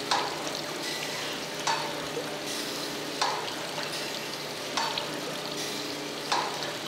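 Thompson surface grinder grinding cast iron straight edge castings under flood coolant: a steady hiss over the machine's hum, with a short louder burst about every second and a half as the reciprocating table carries the work back and forth under the wheel.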